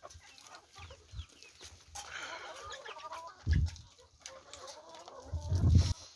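A mixed flock of chickens clucking, with a run of hen calls about two seconds in. Two low rumbles on the microphone break in, about three and a half seconds in and, louder, near the end.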